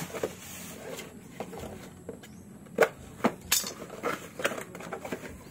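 Cardboard packaging being handled as a box is opened and its inner box slid out: irregular rustles, scrapes and sharp taps, the sharpest a little under three seconds in.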